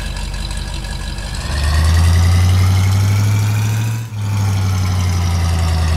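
Truck engine sound effect: a low, steady engine drone that grows louder about 1.5 s in, then drives past with a drop in pitch about 4 s in.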